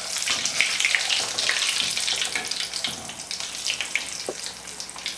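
Breadcrumb-coated mortadella sizzling and crackling in hot frying oil, loudest in the first couple of seconds, then easing a little.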